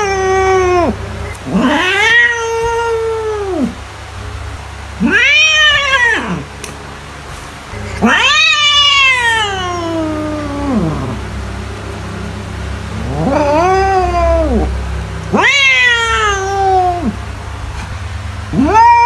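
A domestic cat meowing over and over: about six long, drawn-out meows, each rising and then falling in pitch, one every two to three seconds, over a steady low hum.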